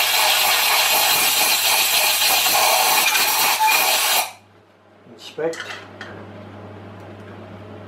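Compressed-air blow gun hissing steadily for about four seconds as it blasts swarf out of a freshly tapped head-stud hole in a Ford engine block, then cutting off suddenly. A few short, light knocks follow.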